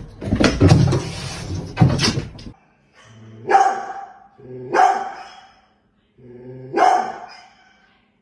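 Large black dog giving three deep barks, each starting low and breaking into a sharp loud bark, spaced a second and a half to two seconds apart. Before them come a couple of seconds of noisy clatter.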